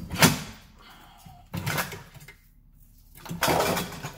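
Steel suspension parts clanking and scraping in three short bursts: the rear coil spring and lower control arm being worked free by hand. The bursts come right at the start, about one and a half seconds in, and a longer one near the end.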